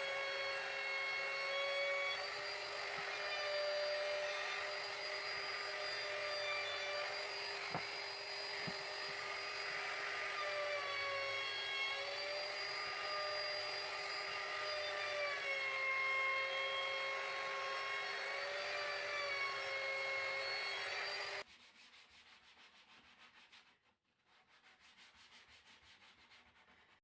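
Electric random orbital sander running on a wooden workpiece, a steady motor whine whose pitch dips and wavers as it is pressed and moved over the wood. It cuts off abruptly about three-quarters of the way through, leaving only a faint hum.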